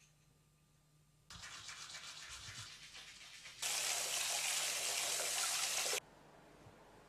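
Water from a bathroom tap running into a washbasin over a toothbrush being rinsed. It starts as a quieter, finely rasping sound about a second in, runs loud and full for a couple of seconds, and cuts off suddenly near the end.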